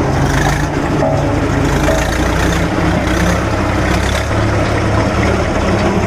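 Jessop road roller's diesel engine running steadily as the roller moves slowly forward.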